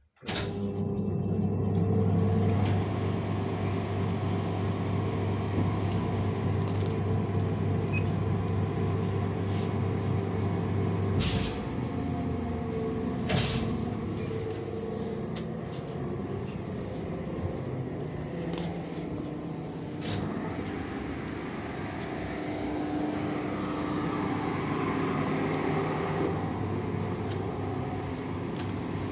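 Inside an ER9M electric commuter train: a steady low electrical hum with running noise. There are two sharp knocks about eleven and thirteen seconds in, and the low hum drops away after the first. A lighter click comes around twenty seconds in.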